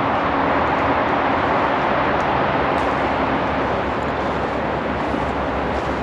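Steady rush of Pocono Creek's rapids, swollen with rain and snowmelt and running high, which the hiker calls roaring.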